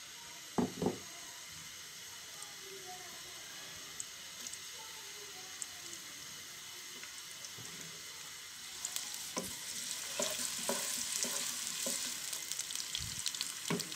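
Sliced onions frying in hot oil in a pan, a steady sizzle as they soften. About nine seconds in the sizzle grows louder as a wooden spatula stirs them, with light knocks of the spatula against the pan.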